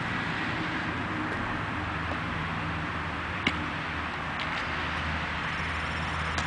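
Steady background rumble and hiss, with a single sharp tap about three and a half seconds in as a leather work boot kicks a small soccer ball on pavement, followed by a couple of faint ticks.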